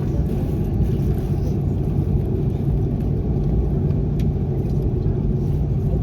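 Steady low rumble inside the cabin of an Airbus A330-300 airliner: jet engine and airframe noise heard from a window seat, even in level throughout.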